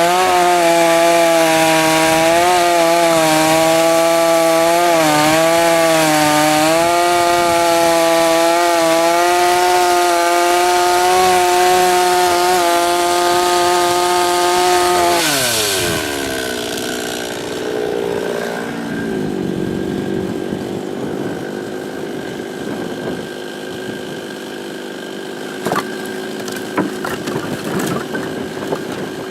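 52cc two-stroke chainsaw with a 20-inch bar running at full throttle through willow logs, its pitch dipping briefly as the chain bites. About halfway through the throttle is released, the engine note falls away and it settles to idle, with a few sharp knocks near the end.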